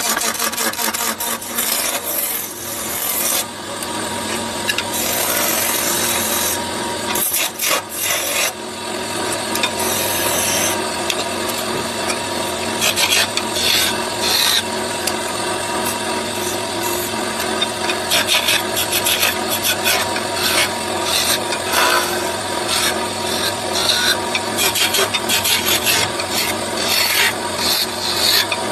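A tool scraping across wood with continuous rasping, which turns into repeated back-and-forth strokes in the second half.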